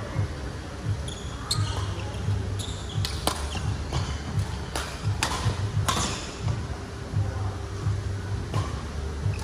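Badminton rally: rackets striking a shuttlecock in short sharp cracks about once a second, with sneaker footfalls and brief squeaks on the court floor.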